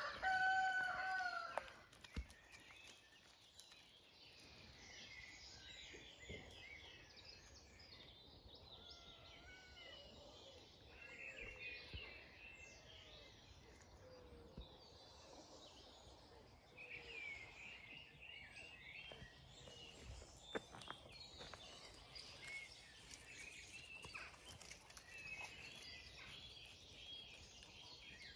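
Songbirds singing faintly in hedgerow and trees, with a single loud drawn-out animal call lasting about a second and a half at the start.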